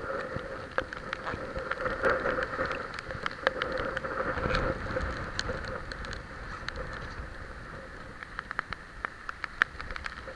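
Typhoon rain falling steadily, with many sharp ticks of drops striking close by and a stronger gust about four seconds in.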